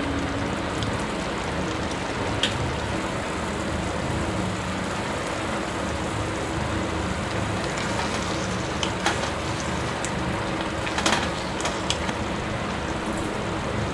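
Marinated chicken frying in a thick masala in a metal kadai, giving a steady sizzle. A wooden spatula knocks and scrapes against the pan a few times, most clearly around nine and eleven seconds in.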